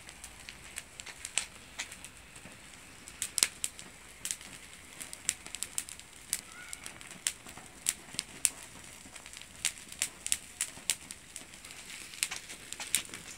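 Dry fir branch burning, with irregular sharp crackles and pops over a faint hiss of flame; the needles are dried out and flare readily.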